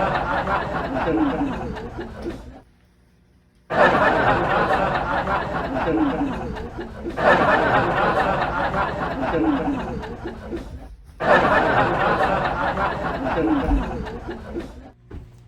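Canned studio-audience laugh track sound effect, the same clip played over and over. It starts abruptly about every three and a half seconds, with a short gap after the first one.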